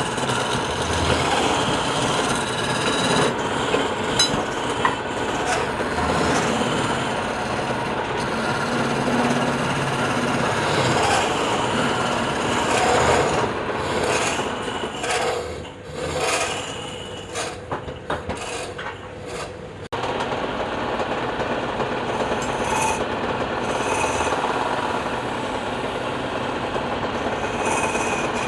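Woodturning lathe with a tool held against the spinning wood, making a continuous rasping cut. For a few seconds past the middle it breaks into short separate strokes, then goes steady again.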